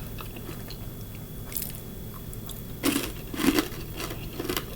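Biting into and chewing crispy fried chicken gizzards close to the microphone: quiet at first, then several loud crunches from about three seconds in.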